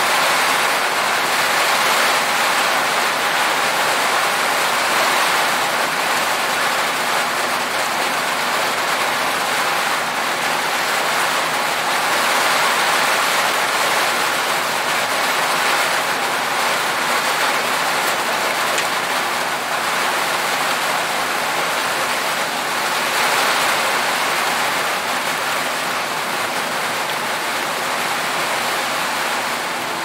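Heavy rain falling on an aluminum roof: a dense, steady hiss of countless drops.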